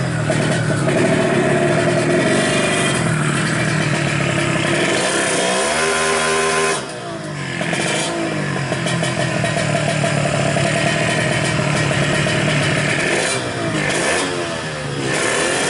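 130cc Suzuki Smash engine with an AHRS exhaust revving hard, its pitch climbing and falling repeatedly; twice the revs drop sharply, about seven seconds in and near the end, and then climb again.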